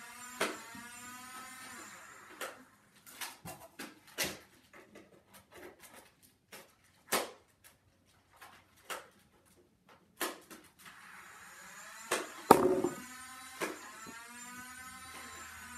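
A Nerf Modulus battery-powered flywheel dart blaster firing foam darts. Its motor whirs up and down near the start and again near the end, with a scattered series of sharp clicks and taps from shots and darts landing; the loudest comes about three-quarters of the way through.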